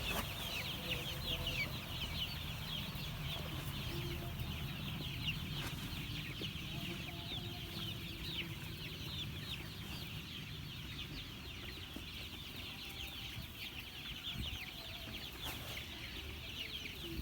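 A flock of month-old chicks peeping continuously, many short high, downward-sliding cheeps overlapping one another.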